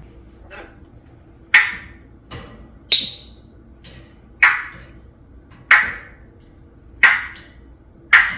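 Parrot making a series of short, sharp popping clicks, one about every second and a bit, with fainter pops in between.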